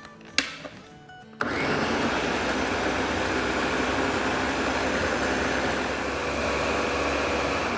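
Countertop blender switching on about a second and a half in and running steadily, puréeing cooked green tomatoes and green chillies. A sharp click comes shortly before the motor starts.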